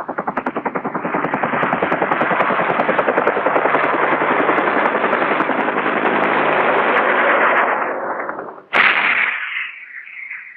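A long burst of rapid automatic gunfire from an AH-1 Cobra gunship's turret gun, about ten shots a second, stopping after about eight seconds. A sudden loud blast follows near the end and fades away.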